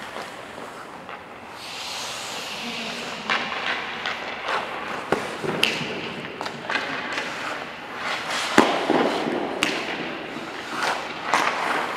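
Ice hockey sounds: skate blades scraping and hissing on the ice, with sharp clacks of sticks and pucks scattered throughout, the loudest about two-thirds of the way through.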